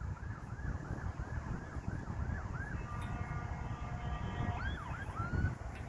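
Emergency vehicle siren on a fast yelp, about three rise-and-fall sweeps a second. About three seconds in it changes to a steady horn-like tone, then to a slower rising and falling wail near the end.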